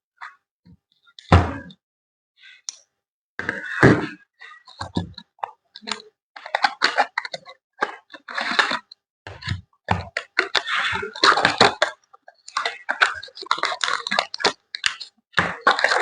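A phone's retail box and its packaging being handled and opened: irregular rustling, scraping and tapping, with dull thunks about a second in and again near 4 s, and busier crinkling through the second half.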